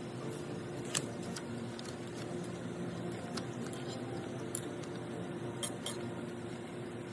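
Scattered light clicks and taps of dishes and utensils during food preparation, over a steady low background hum.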